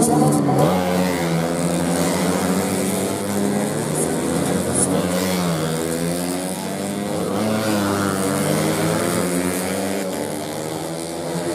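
Four-stroke 130cc underbone racing motorcycles passing at race speed, their engines revving and rising and falling in pitch through gear changes, with more than one engine heard at once.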